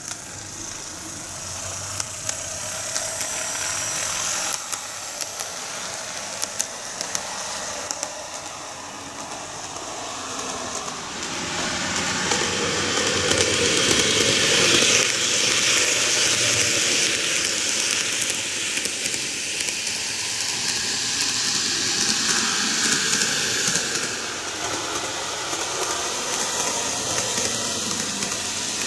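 Greenmax N-gauge Kintetsu 12410 series model train running on TOMIX track: a steady whirring, hissing rumble of the small motor and the wheels on the rails, with occasional light clicks. It grows louder toward the middle and eases off a little near the end.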